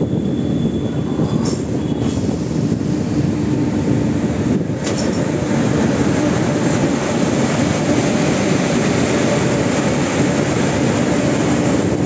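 LHB passenger coach running at speed, heard from its open doorway: a steady rumble and rush of wheels on rail and wind, with two sharp clicks in the first five seconds.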